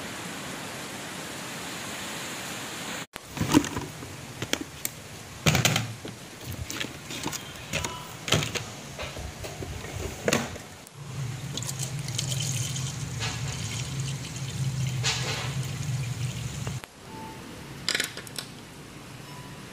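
Steady rain spattering against a window pane, cut off abruptly about three seconds in. Then handling noises: a plastic storage drawer pulled open and art supplies knocked and rattled about with sharp clicks, a steady rushing sound for several seconds in the middle, and a few light taps as paintbrushes are set down.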